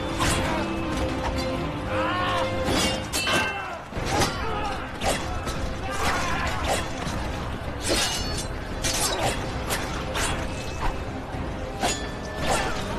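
Battle sound effects of swords clashing and striking, many sharp metallic hits in quick, irregular succession, over a film score.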